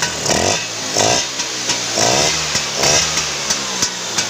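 Motorcycle engine running on its first test after a rebuild, the throttle blipped in four short revs that rise and fall back to idle.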